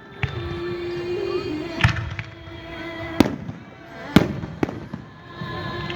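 Fireworks display shells bursting, several sharp bangs at uneven intervals, the loudest about two and four seconds in.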